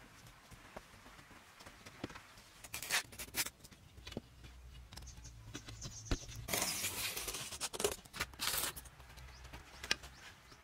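Irregular scraping and brushing strokes of hand tools worked against a painted wall, with scattered light taps. The longest stroke comes about six and a half seconds in and lasts about a second, and a shorter one follows near the end.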